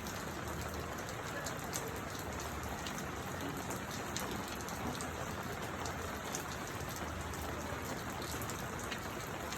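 Steady rain falling, an even hiss with scattered sharper drop hits throughout.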